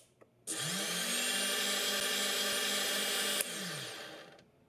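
Small brushless outrunner motor on a quadcopter's main control board spinning up about half a second in, running at a steady speed with a whine and hiss, then cut off near the end and spinning down. This is a function test of the board's motor output after repair.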